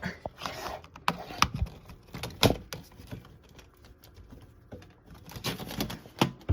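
Irregular clicks and knocks of box fan parts being handled and pushed into place by hand, with some rustling between them.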